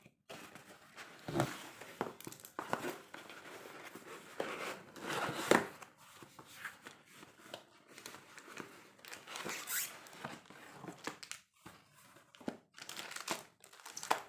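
A cardboard mailer being cut open with scissors and its flaps torn and folded back by hand: irregular rustling, crinkling and tearing of cardboard packaging, with a few sharper crackles.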